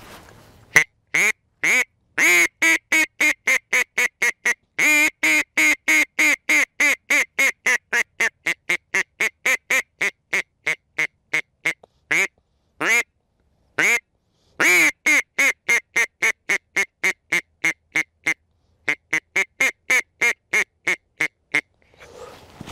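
Mallard-hen-style duck quacking: long runs of loud, evenly spaced quacks, about three a second, each run fading as it goes, with a few longer single quacks in the middle.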